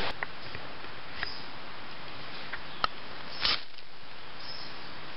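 A ferrocerium rod scraped down the steel blade of a Woodsman's Pal machete, throwing sparks onto wood shavings. There are a few light clicks and scratches, then one louder scrape about three and a half seconds in, over a steady hiss.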